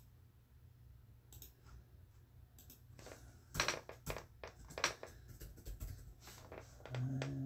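Typing: irregular clicks and taps, sparse at first and coming thicker and louder from about three seconds in. Near the end a steady low hum starts and holds for about a second.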